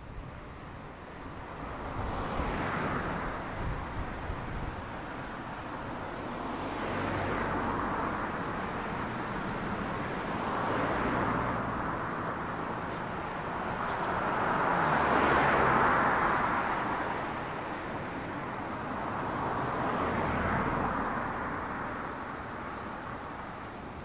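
Cars driving past one after another on a two-lane road, about five, their tyre and engine noise each swelling up and fading away over a few seconds; the loudest passes about two-thirds of the way through.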